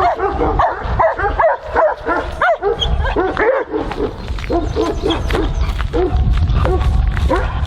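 Great Pyrenees–Anatolian Shepherd mix dog whining and yipping in a quick string of short, high cries. The cries come thickly at first and more sparsely in the second half, over a steady low rumble.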